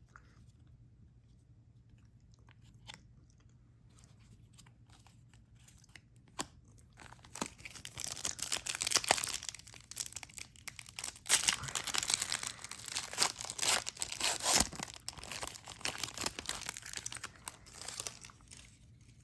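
Foil wrapper of a trading card pack being torn open and crinkled. It is near quiet for the first six seconds or so, then comes a long run of dense crackling and rustling that dies down near the end.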